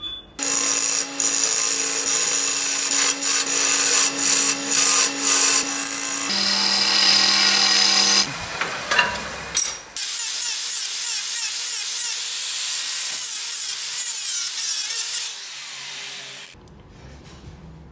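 Wood lathe running while a hand-held turning tool cuts the spinning wooden goblet: a steady motor hum under a loud hissing scrape of shavings that starts and stops with each pass of the tool. The sound changes abruptly several times and falls much quieter near the end.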